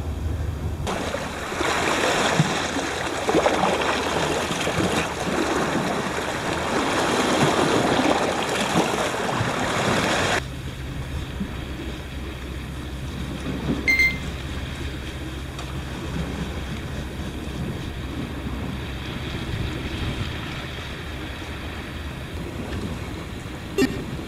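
Wind and surf noise on a rocky sea shore, cutting off suddenly about ten seconds in. After that, a quieter steady low hum with one short high beep about halfway through and a click near the end.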